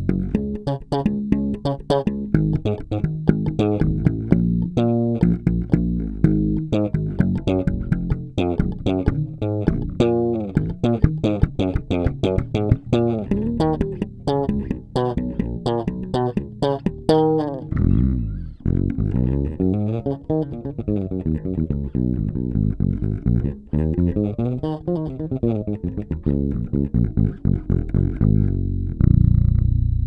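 Warwick Thumb BO five-string bass played fingerstyle with both pickups on and bass and treble set in the middle: a fast run of plucked notes with sharp string attacks, then a little past halfway slower notes that slide in pitch, ending on a low note left ringing.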